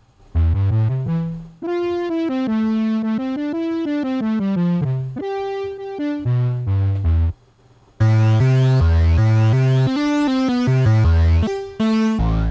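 Karanyi Sounds Polyscape Analogue software synthesizer playing presets over a looped MIDI pattern: a melodic line of held notes over deep bass notes. It stops briefly about seven and a half seconds in, then comes back with a brighter sound full of quick rising sweeps in the upper range.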